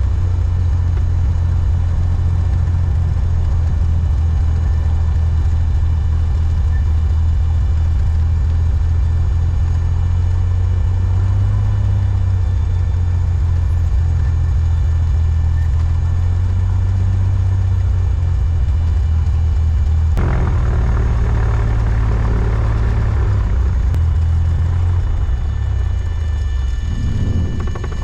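Cabin noise of a Cessna 182's piston engine and propeller running at low taxi power: a steady deep drone that begins abruptly and eases off over the last few seconds.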